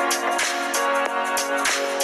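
Background music: a melody of held, changing notes over a regular beat.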